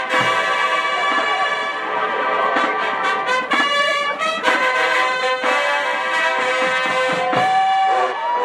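High school marching band brass section playing sustained full chords, with a run of short, punched notes near the middle.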